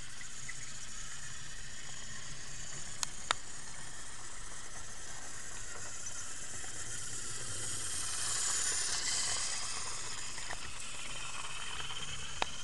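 TrackMaster Henry battery toy engine running on plastic track: a steady motor whir with wheel rattle that grows louder about eight seconds in as it passes close by. A few sharp clicks, two about three seconds in and one near the end.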